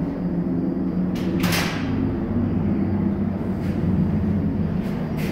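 Steady low rumble of a moving 26-foot box truck heard from inside its empty cargo box. About a second and a half in comes a short rattling clatter from the box, and a few lighter knocks follow near the end.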